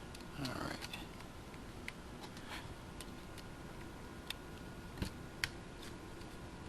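Scattered faint clicks and taps of small RC buggy suspension parts, a turnbuckle link and its screws, being handled and fitted on the bench, with a brief low murmur about half a second in.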